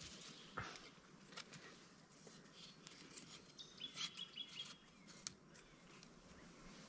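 Faint knocks and clicks of dry twigs being handled and slid under paracord, with a short run of high bird chirps about four seconds in.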